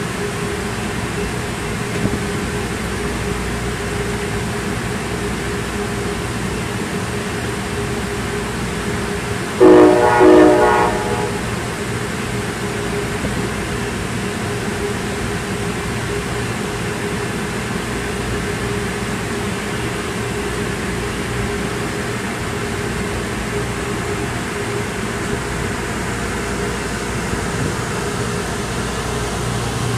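Amtrak Cascades train standing at the platform with a steady idling hum. About ten seconds in, its horn gives two short blasts, the signal that the train is about to move off.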